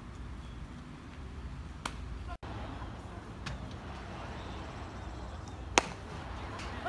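A few sharp cracks of baseball impacts, the loudest about six seconds in, over steady outdoor background noise.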